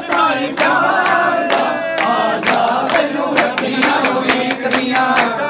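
Group of men singing a Punjabi devotional bhajan together, over a fast, steady beat of sharp percussive strikes at about four to five a second.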